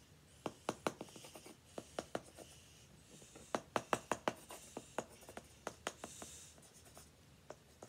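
Styluses scratching lines into black-coated scratch-art paper: short, sharp scratchy strokes and ticks in uneven clusters, busiest a few seconds in.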